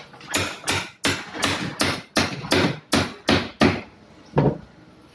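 A quick run of about ten hard knocks, roughly three a second, then a single knock a little later, like hammer blows.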